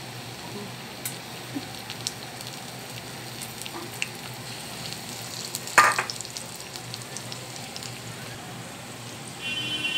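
Besan-battered ajwain leaf bhajji deep-frying in hot oil in a kadhai: a steady sizzle with small scattered crackles, and one brief louder burst about six seconds in. A high steady tone begins just before the end.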